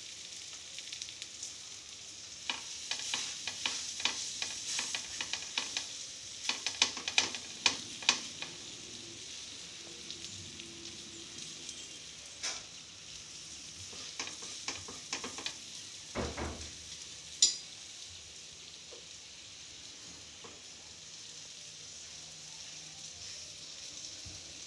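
Melted butter sizzling and crackling in a frying pan as rolled chapati wraps fry in it, the crackle busiest in the first third. A short dull knock about two-thirds of the way through.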